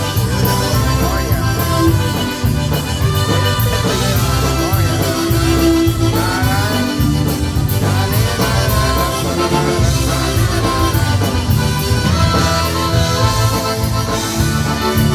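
Chicago-style polka band playing an instrumental passage, with reed squeezebox melody over a steady oom-pah bass beat.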